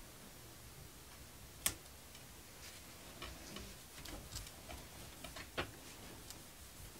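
Faint scattered clicks and ticks from a thin metal plate and its plastic film being handled and pressed down on a wooden board, with one sharp click about a second and a half in and another near the end.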